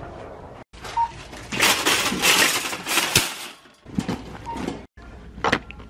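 Metal wire shopping cart rattling and clattering as it is taken and pushed, with a few sharp clicks afterwards.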